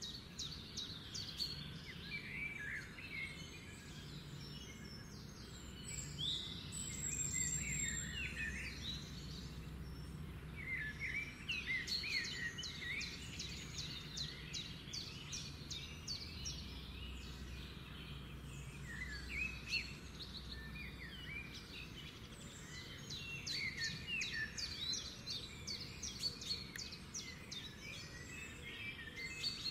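Small songbirds chirping and twittering, several calling over one another in quick trills, over a low steady hum.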